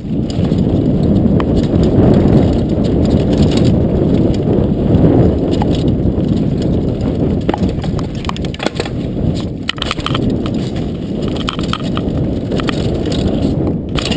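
Mountain bike riding fast down a dirt trail: a loud, steady rumble of tyres on dirt and wind on the camera's microphone, with scattered sharp knocks and rattles as the bike jolts over bumps.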